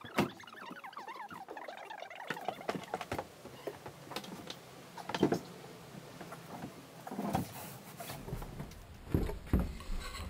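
Rigid foam core sheets being handled inside a fibreglass hull: squeaky rubbing in the first couple of seconds, then scattered light knocks and bumps as the pieces are shifted against the hull.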